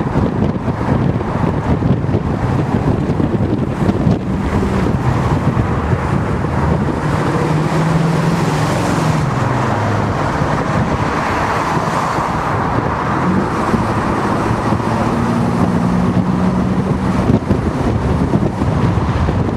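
Car driving along a road, recorded from inside a moving vehicle, with steady wind and road rush on the microphone. Faint engine hum drifts in pitch, falling about eight seconds in and rising again near the end.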